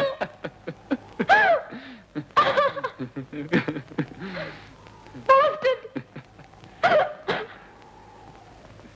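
A series of about six short, high-pitched vocal cries, each rising and falling in pitch, with clicks between them, growing fainter near the end.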